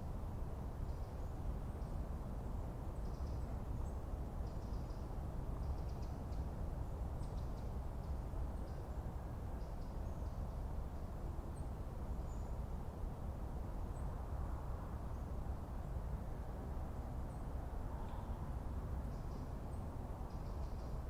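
Forest ambience: a steady low background rumble with faint, scattered high bird chirps every second or so.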